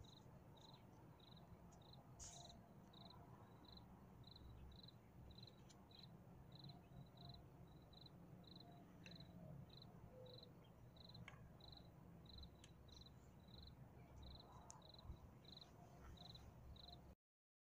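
A cricket chirping faintly and steadily, about two short high chirps a second, over low outdoor background noise; the sound cuts off abruptly near the end.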